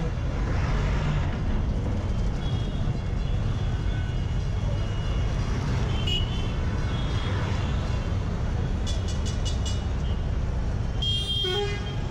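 Busy road traffic at a bus stand: a steady low rumble of heavy-vehicle engines, including a coach manoeuvring, with vehicles passing close by. Short horn toots sound several times, with a quick run of short beeps about nine seconds in and a louder horn near the end.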